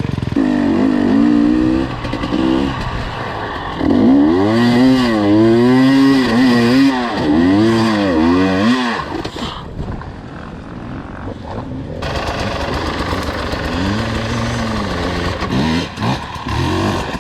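Off-road dirt bike engine revving up and down in repeated bursts of throttle, with a lull in the middle.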